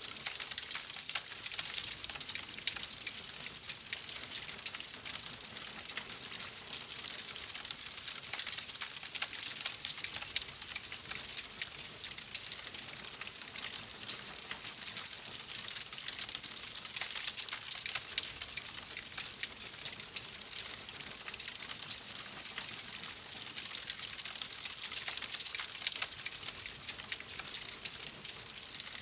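Steady rain hiss mixed with a wood fire crackling, many small irregular pops and ticks over the even patter.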